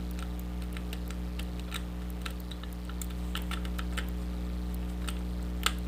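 Irregular small clicks of a lock pick lifting and setting the pins of a pin-tumbler challenge lock held under a tension wrench, one sharper click near the end, over a steady electrical hum.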